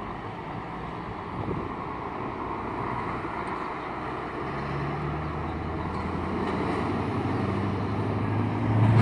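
Scania truck's diesel engine growing louder as the truck approaches and drives past close by; a low, steady engine note comes up about halfway through and is loudest at the very end.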